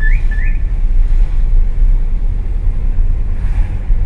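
Steady low rumble of a car driving through city traffic, heard from inside the car. Near the start come two short rising chirps, a fraction of a second apart.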